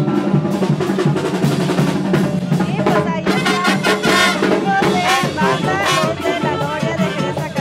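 Brass band music with drums: a steady low bass line under snare and drum hits, with the horns taking up a wavering melody about three seconds in.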